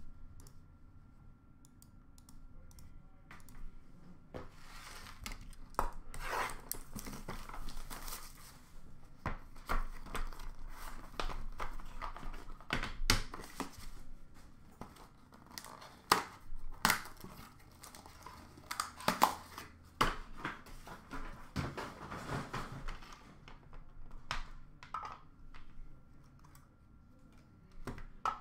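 Hockey card packs being torn open and their wrappers crinkled, with cards and hard plastic card holders handled on a counter: irregular tearing, rustling and small clicks, starting a few seconds in and thinning out near the end.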